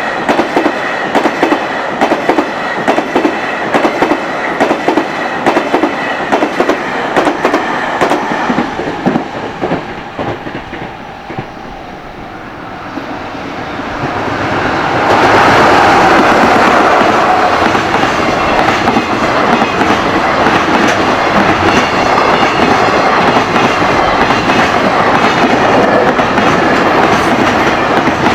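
The tail of a fast freight train clattering over rail joints in a quick rhythm, dying away about ten seconds in. A few seconds later another train comes through close by, a louder rushing roar with wheel and joint noise.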